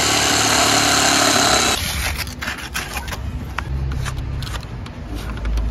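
Electric jigsaw cutting a pine board, running steadily for the first two seconds and stopping abruptly. Then come light clicks and handling knocks as a round pop-up socket is fitted into the cut hole.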